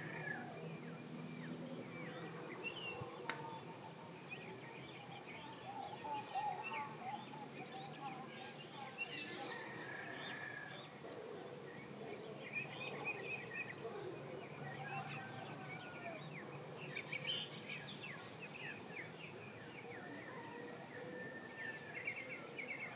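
Birds chirping and calling, with many short chirps and trills overlapping throughout, over a faint low steady hum.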